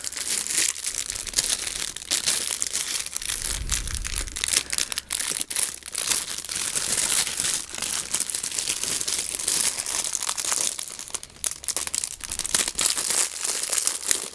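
Clear plastic wrapping crinkling and tearing as it is pulled off a toy sword by hand, a dense run of small crackles.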